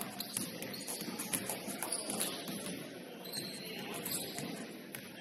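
Basketball game ambience in a gym: sneakers squeaking on the court now and then, with scattered thumps and clicks over a steady background of indistinct voices.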